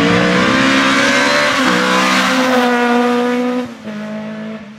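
Rally car engine running hard at high revs as the car speeds past. Its pitch shifts once about two seconds in, and the sound drops off sharply near the end as the car pulls away.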